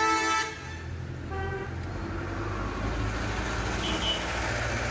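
Vehicle horn from passing road traffic: a long honk cutting off about half a second in, then a second, shorter and fainter honk a little later, over a steady low rumble of traffic.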